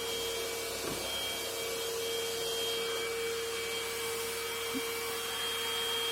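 Cordless stick vacuum cleaner running steadily: an even rush of air with a steady motor whine.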